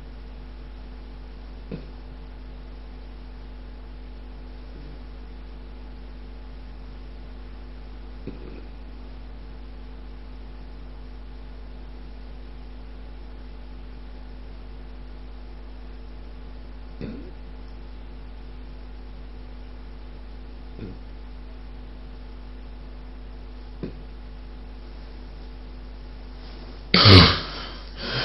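A sleeper with obstructive sleep apnoea in a breathing pause: a long stretch of steady low hum with only a few faint short sounds, then, about 27 seconds in, a loud snort as breathing starts again.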